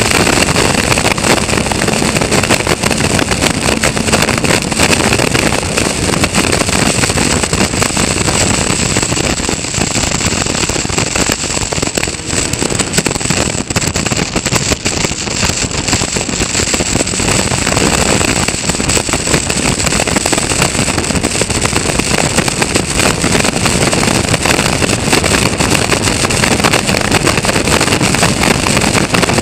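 Caterham Roadsport race car's Ford Sigma 1.6 four-cylinder engine running hard at racing speed, picked up by an onboard camera with heavy wind rush over the open car. The sound is steady and loud, with no pauses.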